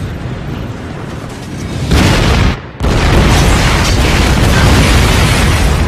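Cartoon explosion sound effects. A low rumble builds, then a loud blast comes about two seconds in. After a brief dip, the blast continues as a loud, steady rumble.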